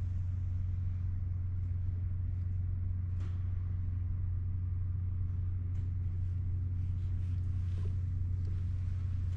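Steady low droning hum that does not change, with a few faint clicks and taps.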